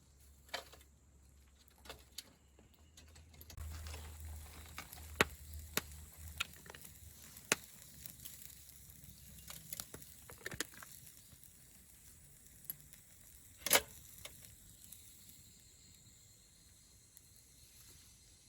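Small wood fire crackling, with scattered sharp pops and clicks; the loudest pop comes about three-quarters of the way through.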